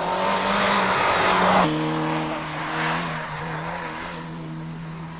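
Rally car engine at high revs as the car passes close, loud and rough; about a second and a half in the sound changes abruptly to a more distant rally car engine holding a steady note, fading slowly as it moves away.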